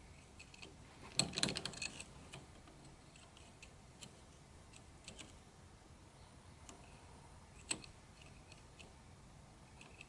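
Small metallic clicks of a disc-detainer pick rotating the discs inside a Polhem disc padlock while each disc is felt for its gate: a quick cluster of clicks a little over a second in, faint scattered ticks, and one sharper click past the middle.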